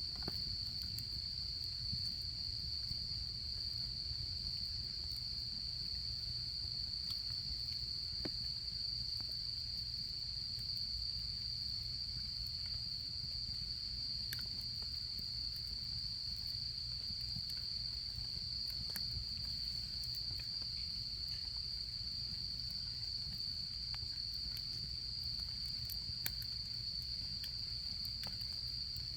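Autumn insects (crickets) trilling, one steady high-pitched note without a break, over a campfire crackling with scattered sharp pops.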